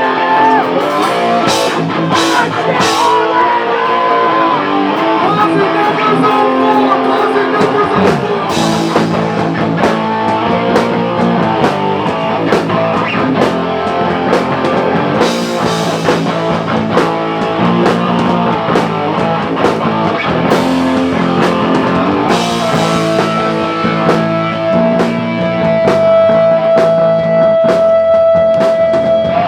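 Live rock band playing electric guitars and a drum kit, with cymbal crashes every few seconds. Over the last several seconds a single high note is held and grows louder.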